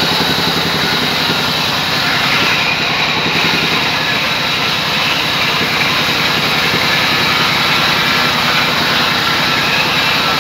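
Large vertical band saw ripping a slab of rain tree timber: a steady high whine and hiss from the blade in the wood over the low, evenly pulsing drone of the machinery driving it.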